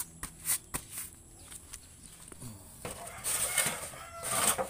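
Disposable aluminium foil pan being handled and slid under the car: a few light taps, then two spells of crinkling foil near the end.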